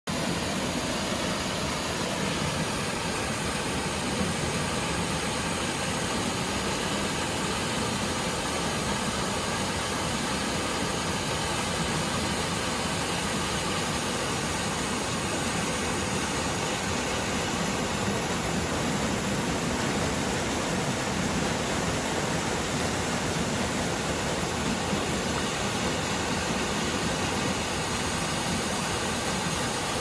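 Mountain stream after rain, water rushing in small cascades over and between granite boulders: a steady, unbroken rush.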